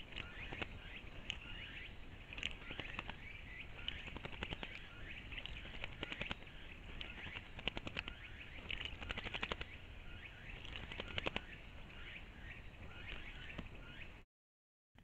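A bird bathing in a shallow pool: short bursts of wing-flapping and splashing, repeated many times. Faint bird chirps run behind.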